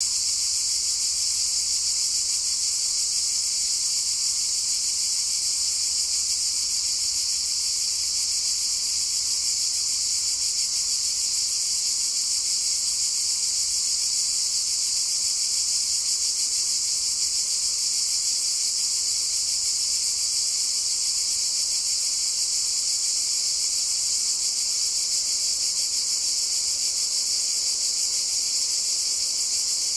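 Dense, steady chorus of cicadas, a high shrill drone with no breaks.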